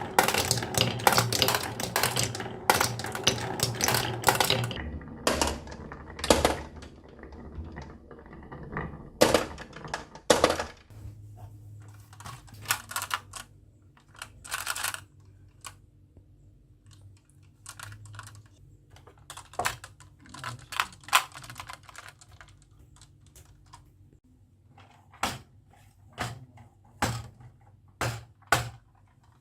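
Marbles clattering down a HABA wooden marble run track: a dense run of rapid clicks and knocks for the first few seconds, then sparser single clicks and short rattles. A faint steady low hum sits under the middle stretch.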